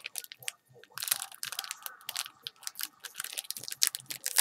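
Foil trading-card pack wrapper crinkling as it is handled, full of quick small clicks and crackles, with a brief lull about half a second in.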